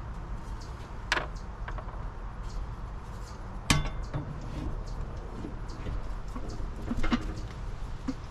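Metal meter-socket cover clinking against the enclosure as it is fitted over an electric meter and pressed into place, with three sharp clicks: about a second in, a louder one near the middle, and another about seven seconds in. A steady low rumble lies underneath.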